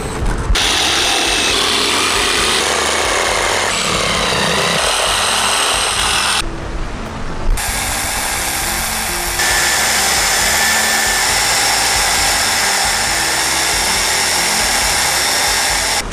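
Electric belt sander running while a wooden handle block is pressed against the belt and ground to shape, over background music.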